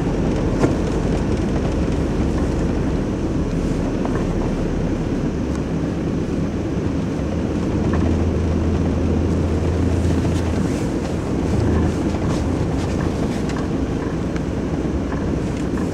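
Nissan Navara crew-cab pickup driving slowly on packed snow, heard from inside the cab: a steady low drone of engine and tyres. A deeper engine hum swells for a couple of seconds about halfway through.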